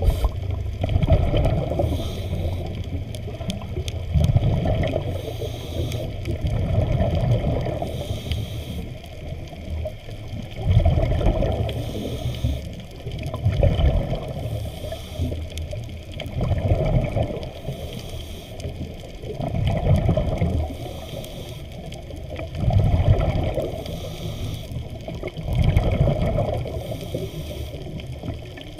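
Muffled water noise heard through an underwater camera housing, swelling and fading about every three seconds.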